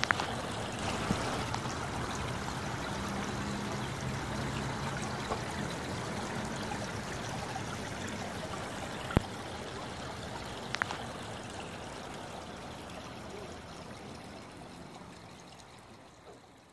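Water trickling steadily over the rocks of a small backyard fish pond's waterfall, with two sharp clicks a little past the middle; it fades out near the end.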